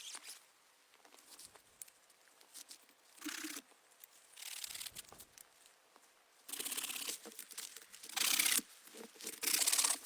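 Five short rasping, rustling strokes, each under a second, the last two loudest, like material being handled, torn or zipped.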